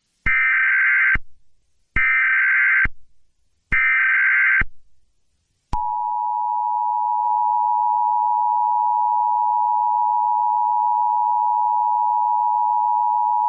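Emergency Alert System tones: three short bursts of SAME header data, each about a second long and a second apart, then the steady two-tone EAS attention signal, beginning a little before the middle and held to the end. Together they open a civil danger warning.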